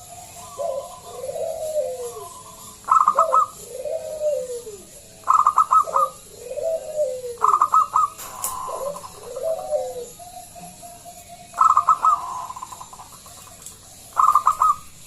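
Zebra dove (perkutut) cooing in repeated phrases: low arching coo notes alternating with quick stuttering higher notes, each phrase about two to three seconds long.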